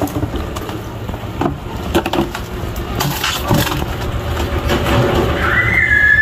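Hands pouring and packing sand around a tree's roots in a plastic pot, with gritty crunching, scraping and small crackles as fingers push the sand down. Near the end a high, steady whistle-like tone starts and holds, falling slightly.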